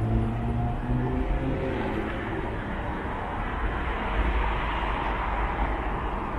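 Street traffic noise under an elevated railway: a vehicle's engine hum fades away in the first second or so, leaving a steady low rumble and wash of traffic.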